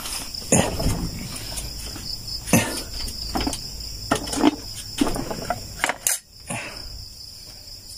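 Crickets chirping in a steady high trill, with a few sharp knocks and clatters scattered through it.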